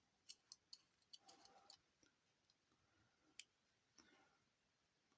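Near silence with a scatter of faint, light clicks and taps over the first three and a half seconds: small parts being handled and fitted, with no machine running.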